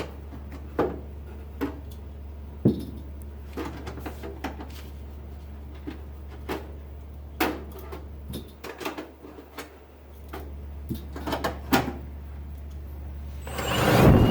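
Scattered clicks and knocks of tools and small parts being handled. About a second before the end, a power drill starts up and rises to full speed with a whine, to open up the rivet holes, which were drilled too small.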